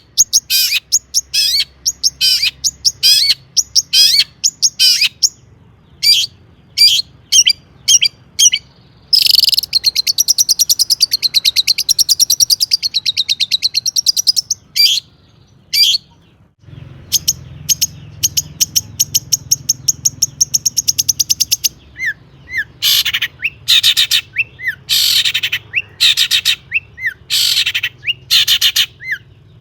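Long-tailed shrike (cendet) in full song: runs of sharp, high, repeated notes, two long, fast chattering trills, and more varied call phrases near the end, the bird's mimicked 'isian' material.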